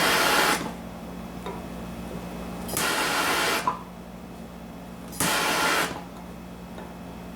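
A MAP-gas torch flame hissing in three surges of just under a second each as it is passed over lead body filler, over a steady low hum.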